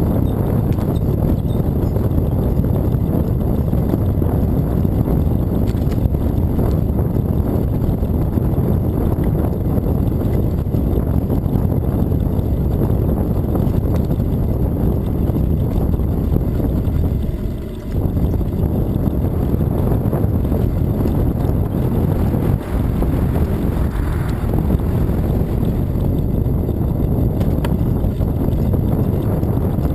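Wind buffeting the microphone of a camera on a moving bicycle: a steady low rumble that drops out briefly a little past halfway through.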